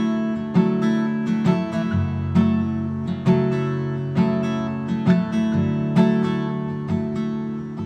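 Acoustic guitar strumming chords in a steady rhythm, a strong strum about once a second with the chords ringing on between them.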